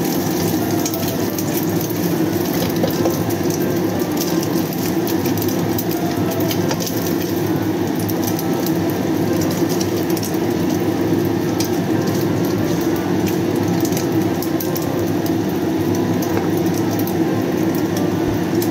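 Egg frying in black sesame oil in a wok, a steady sizzle full of fine crackles, with a spatula scraping and tapping the pan. A steady low hum runs underneath.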